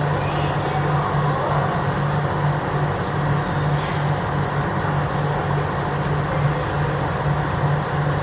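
An engine running steadily with a low, even throb of about two pulses a second.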